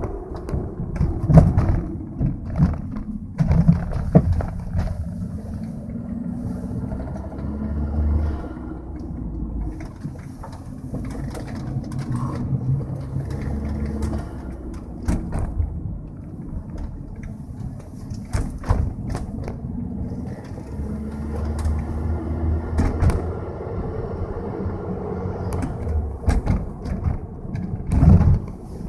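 Cabin sound of a 2003 Volkswagen Jetta 1.8T on the move: a steady low engine and road rumble with a series of sharp knocks and thumps, the strongest about a second in, around four seconds in and near the end. These are the subtler knocks the car makes over some bumps.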